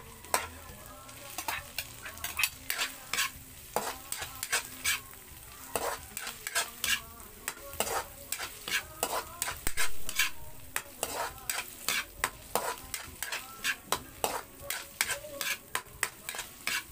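Metal spatula scraping and knocking against a wok, two or three irregular strokes a second, as sliced mushrooms, ham and onion fry in butter with a steady sizzle underneath.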